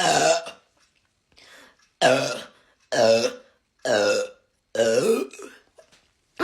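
A run of loud, drawn-out burps from a person who has just gulped down carbonated Sprite, roughly one a second, each about half a second long, with a fainter one between the first two.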